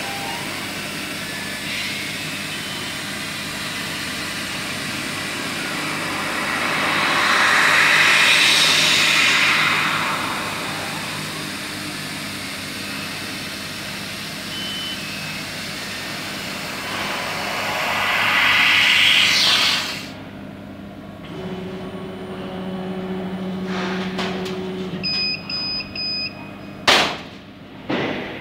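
Laser cutter cutting thin stainless steel sheet: a steady hiss of assist gas from the cutting head, swelling louder twice, then stopping abruptly about two-thirds of the way through. Afterwards comes a lower machine hum, a quick run of short electronic beeps, and a sharp knock near the end.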